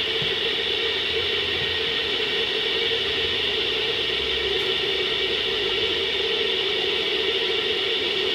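Steady hiss of a pot of soup at a rolling boil under its glass lid on a gas hob, with the burner flame running beneath it.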